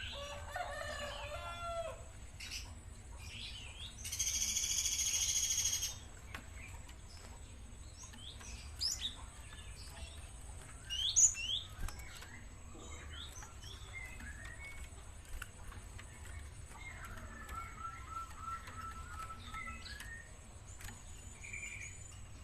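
Young Java sparrow giving scattered short chirps and sweeping call notes, with a quick run of about eight repeated notes a little past the middle. About four seconds in there is a loud two-second rustling burst.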